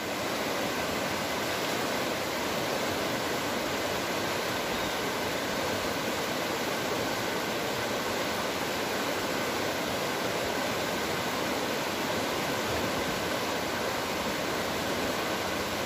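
A swollen river in flood rushing steadily over rocks, a constant noise without breaks.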